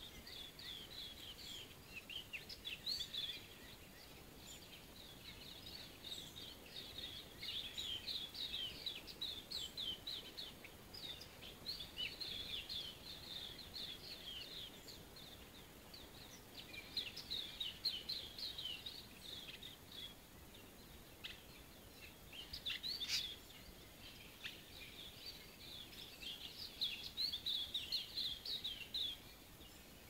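Dawn chorus of several songbirds: dense, rapid high-pitched chirping and twittering that comes in waves with short lulls, over a faint steady hiss.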